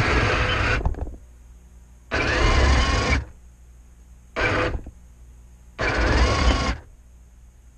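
Radio-controlled model tank's electric drive motors and gearboxes whining in four short bursts, with quieter gaps between, as it drives in stops and starts.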